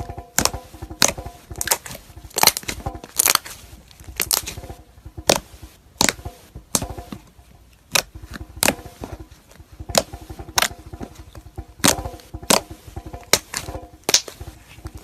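Crunchy slime being squeezed and pressed, giving sharp, irregular crackling pops, about one to three a second.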